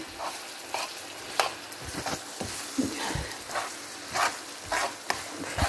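Carrots and peas being stirred into a sizzling onion-tomato masala in a frying pan: a steady sizzle, with the spoon scraping and knocking against the pan about twice a second.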